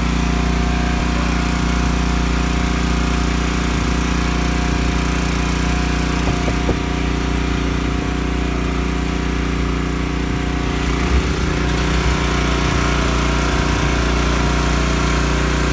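A small fishing boat's motor running steadily at an even, unchanging pitch.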